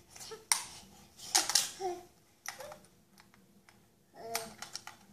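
A toddler babbling in a few short, separate bursts of wordless sounds.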